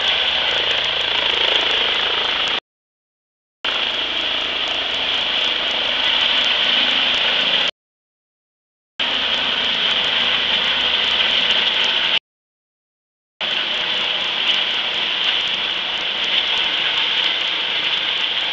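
Yellow Eurocopter EC135 trauma helicopter climbing away after takeoff: steady turbine and rotor noise. The sound cuts out completely three times, for about a second each.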